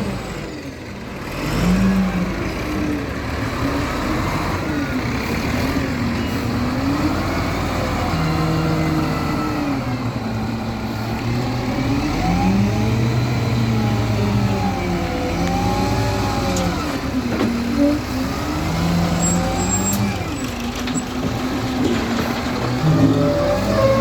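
Diesel engine of a loader at work, revving up and down again and again as it loads a dump truck, its pitch rising and falling every few seconds.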